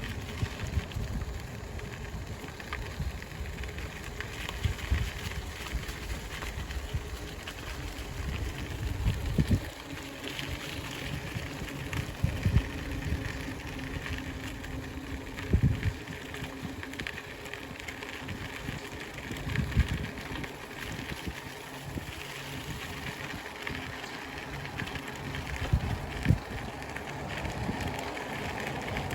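Riding a bicycle: wind buffeting the microphone in gusts, heaviest for the first ten seconds and then coming and going, over a steady hiss of tyres rolling on the trail, with a few short knocks.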